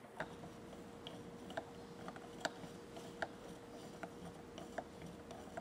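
Faint, irregular light clicks and taps, about one or two a second, from water being stirred in a calorimeter, the stirrer knocking against the vessel, over a faint steady tone.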